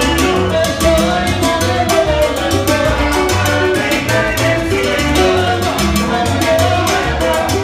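A live salsa conjunto playing: timbales and congas drive a busy, steady rhythm over a repeating bass line, with the full band sounding together.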